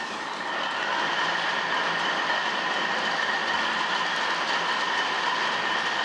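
An 1880s New Haven metal planer's flat-belt drive starting up and running. The pulleys, belts and reciprocating table make a steady mechanical whir with a faint high whine; it builds over the first second as the machine comes up to speed.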